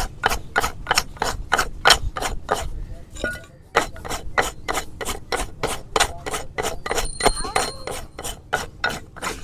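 Farrier's rasp filing a horse's hoof in quick, regular strokes, about four a second, with a short pause about three seconds in.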